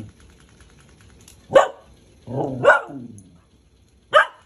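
Puppy giving three short excited barks about a second apart, the second one led in by a brief low growl.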